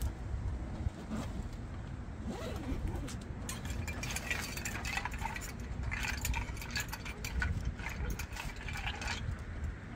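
A long spoon stirring a drink in a glass mug, with rapid clinking and rattling against the glass from about three and a half seconds in until shortly before the end. A steady low rumble lies underneath.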